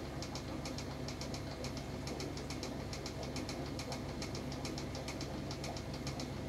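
Steady low electrical hum from running aquarium equipment, with a rapid run of faint ticks, about three to four a second.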